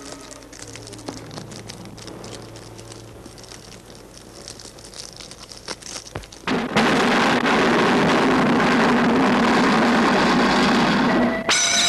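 Soft crackling and clicks, then a loud, steady rushing noise that starts suddenly about six and a half seconds in. It cuts off abruptly near the end, where a siren begins with a slowly rising tone.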